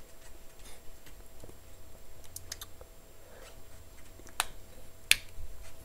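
Light taps and clicks of a stylus writing on a pen tablet, with two sharper clicks about four and a half and five seconds in.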